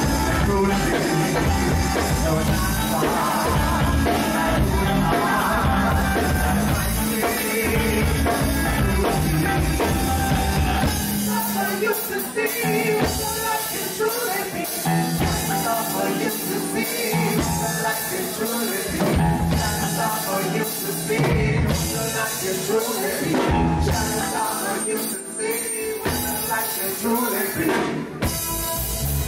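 Live band playing loud, with drums and bass up front. About eleven seconds in the low end drops away and a sparser, thinner section follows, with sharp drum hits.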